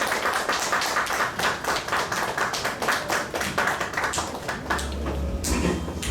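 Audience clapping, a quick run of sharp claps that thins out after about four seconds, when a steady low hum comes in.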